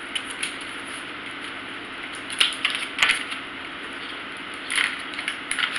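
A few short crinkling rustles of a clear plastic oven bag being handled, over a faint steady hum.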